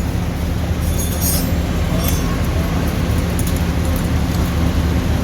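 Steady, loud street noise with a low engine hum running throughout, and a few faint light clicks.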